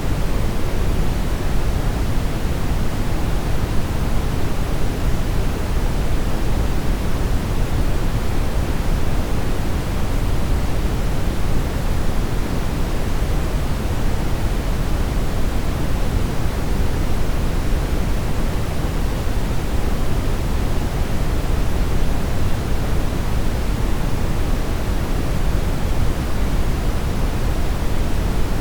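Television static noise from a TV with no signal: a steady, even hiss, heavier in the low end, with no tones or breaks.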